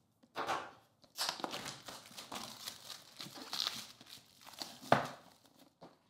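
Clear plastic shrink wrap being peeled and pulled off a cardboard iPad box by hand, crinkling and tearing irregularly, with one sharp crack about five seconds in.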